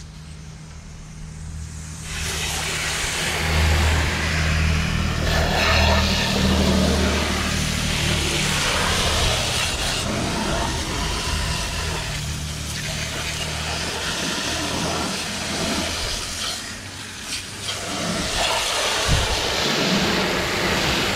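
Water spraying from a hose onto an aluminum boat hull, rinsing off acid aluminum brightener: a steady hiss and splatter that starts about two seconds in. A low steady hum runs underneath.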